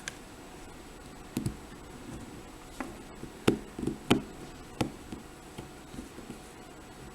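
Irregular small clicks and taps from a tool working at the retaining clip on the back of a Kasp padlock, trying to pry the clip off so the lock can be opened up.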